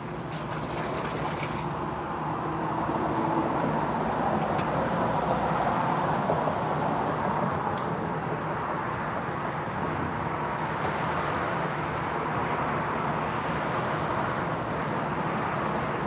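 Distant vehicle noise at night: a steady rushing sound that swells over the first few seconds and then holds, with a faint low hum underneath.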